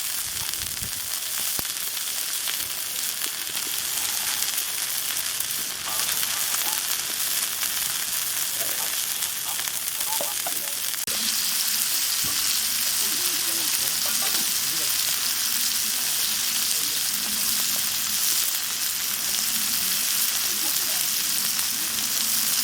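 Food frying in oil: a steady sizzle that grows a little louder about halfway through.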